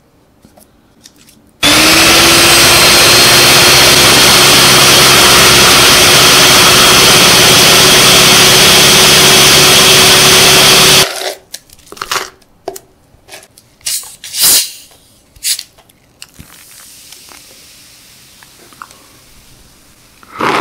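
Handheld electric mixer running inside a hollowed pineapple, blending the flesh: it starts abruptly about a second and a half in, its motor whine settling to a steady pitch, runs loudly for about nine seconds, then stops suddenly. After it come a few knocks against the shell and a soft fizzing as Sprite is poured in and foams.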